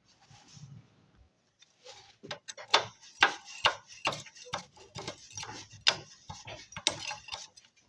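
Irregular sharp clicks and knocks of hand tools working on motorcycle parts, several a second, starting about two seconds in.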